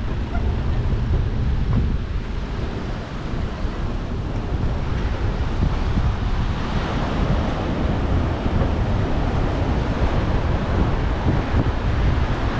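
Ocean surf washing over rocks, with wind buffeting the microphone. The surf's hiss grows fuller about halfway through.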